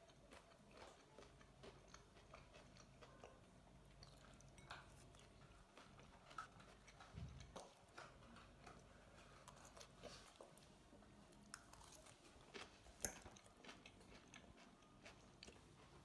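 Faint eating sounds: chewing of carrot salad and a metal fork clicking and scraping in a bowl. The clicks are scattered, with one sharper click about thirteen seconds in.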